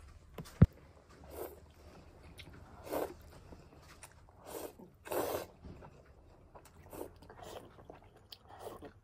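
A person slurping and chewing spicy mixed noodles (bibim-myeon) close to the microphone, in short separate bursts about once a second, with a sharp click near the start.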